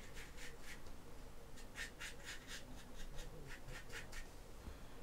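A stiff, cut-down paintbrush scrubbing wet paint on a plastic scale-model kit, heard as a faint, irregular run of short scratchy strokes. It is hairspray chipping: the wetted top coat is starting to lift off the grey layer beneath.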